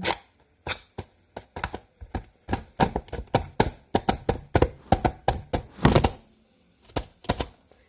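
A rapid, irregular series of sharp taps and knocks on hard objects, several a second, with a brief pause about six and a half seconds in.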